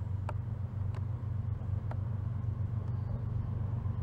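Diesel freight locomotives rumbling as they approach and pass, a steady low drone, with a few faint ticks.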